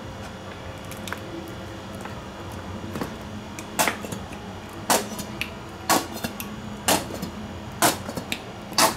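A plastic squeeze bottle of remoulade squirting and sputtering as it is squeezed out over pasta salad. There are six short squelching spurts, about one a second, starting about four seconds in.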